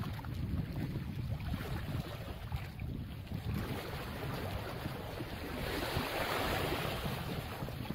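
Small waves sloshing against barnacle- and oyster-crusted shore rocks, with wind rumbling on the microphone; about six seconds in a wave washes over the rocks with a louder rush of water that fades after a second or two.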